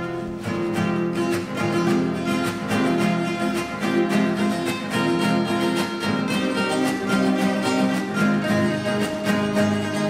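Several acoustic guitars strummed together in a steady rhythm, playing a Huni Kuin song.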